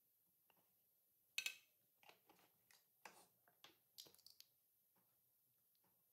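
Faint clicks and taps of plastic spice jars being opened and tipped over a stainless-steel mixer-grinder jar, the sharpest click about a second and a half in and a quick run of smaller taps around four seconds in.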